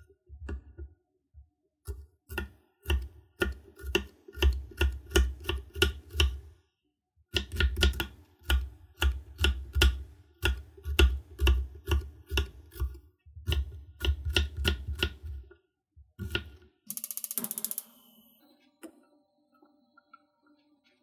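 Chef's knife chopping an onion on a wooden cutting board: a long run of quick, sharp knocks about three a second, broken by a short pause partway through. A brief hiss follows near the end.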